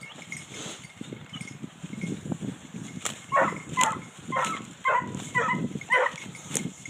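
Hunting hound giving tongue while trailing wild boar scent: short, pitched yelps repeated about twice a second, starting about halfway through. Before the yelps start, footsteps rustle through forest litter.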